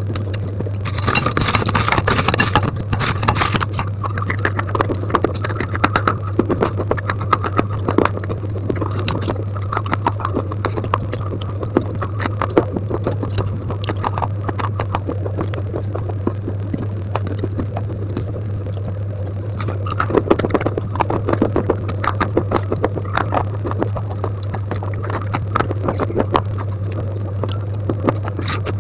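A spoon scraping and clinking on a stainless steel plate, with chewing, in many short clicks over a steady low hum.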